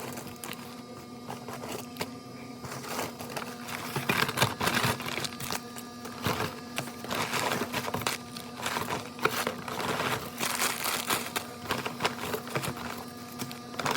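Irregular rustling and light clicks and knocks, like things being handled, over a steady low hum. The handling gets busier about four seconds in.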